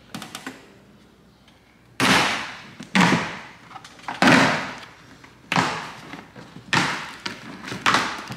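Stock plastic rear diffuser's interlocking clips popping loose from a Dodge Charger SRT's rear bumper as it is pulled off by hand. Six loud pops come about a second apart, starting about two seconds in. The sound is like something breaking, but it is the plastic unlocking from the bumper.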